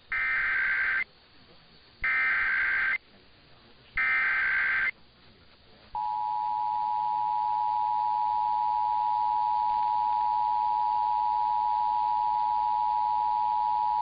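Emergency Alert System header: three one-second bursts of SAME digital data about two seconds apart. About six seconds in, the two-tone attention signal starts, a steady dual tone of 853 and 960 Hz, received over AM radio. Together they open a test of the Emergency Alert System.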